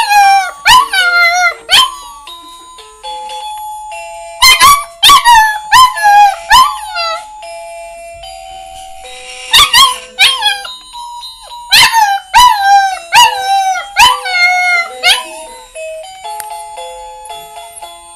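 Husky puppy howling in four runs of short, high, wavering howls, each dropping in pitch at its end, with pauses between the runs. A slow tune of held musical notes plays underneath.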